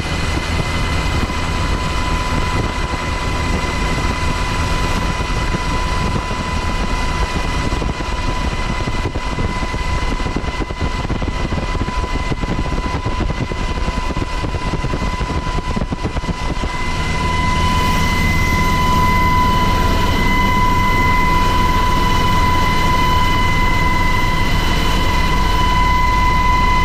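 HH-60 Black Hawk helicopter heard from inside its open cabin door: steady rotor and twin-turboshaft engine noise with a constant high whine, growing a little louder about two-thirds of the way through.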